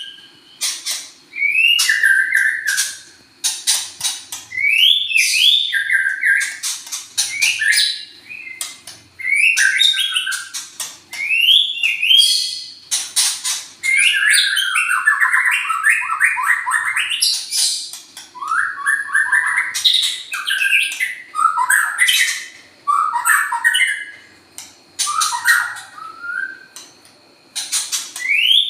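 Young songbird singing steadily: phrase after phrase of quick, gliding chirps and sharp clicking notes, with short pauses between phrases.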